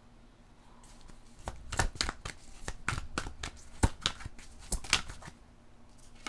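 Long fingernails tapping and clicking on tarot cards and the mat they lie on: an irregular run of sharp clicks, some loud, starting about a second and a half in and stopping about a second before the end.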